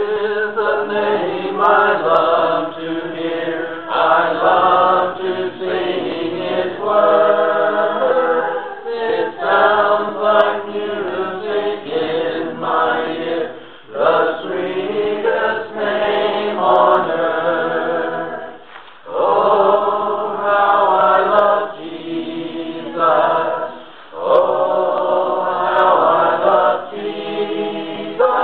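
A group of voices singing a hymn in long phrases, with short pauses between them.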